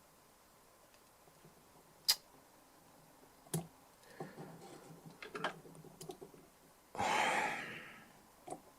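Small metal tools clicking and scraping against the inside of an opened DI box as debris is picked out. A short hiss near the end fades over about a second, and a last click follows.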